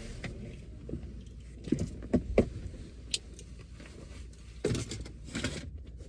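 Scattered knocks, clicks and rattles of things being handled inside a parked car, over a low steady hum.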